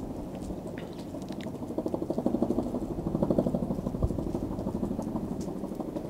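An engine running with a fast, even pulsing, growing louder about two seconds in.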